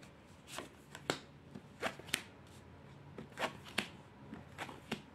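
Tarot cards being handled and laid down on the spread: a string of faint, irregular card flicks, slaps and slides, about a dozen of them.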